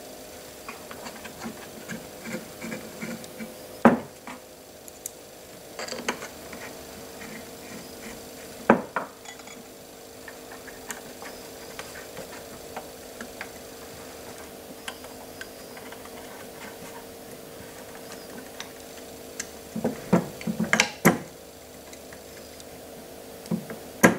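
Screwdriver and small screws being worked into the end plate of an aluminium C-beam actuator: light scraping and ticking, with a few sharp metallic clicks, one about 4 seconds in, one about 9 seconds in, and a louder cluster near the end.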